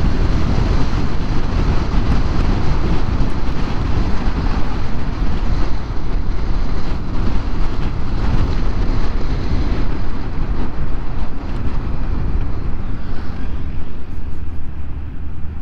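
Steady rush of wind and road noise on the microphone while riding a Honda Forza 350 scooter, easing slightly near the end.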